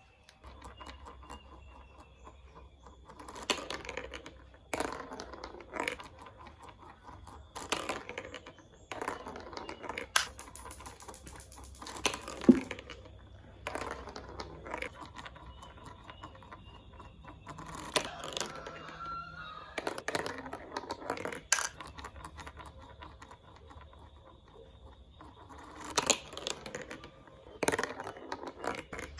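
Plastic marble-run toy pieces clicking and clattering: irregular sharp clicks and short rattling bursts, a few seconds apart, over a faint steady hum.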